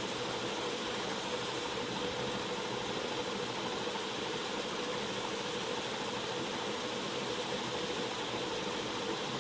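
Steady background noise: an even hiss with a faint hum, like a room fan running.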